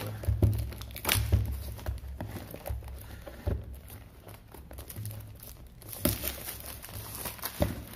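Plastic shrink-wrap on a cardboard smartphone box crinkling and crackling as it is picked at and peeled off, with irregular crackles that grow denser near the end. The box is being handled, giving low bumps and knocks.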